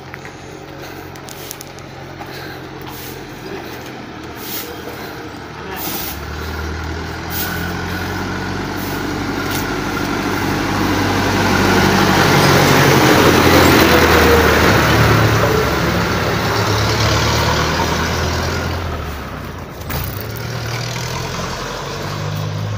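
Farm tractor engine running as the tractor approaches, growing louder to a peak a little past halfway, then fading as it passes.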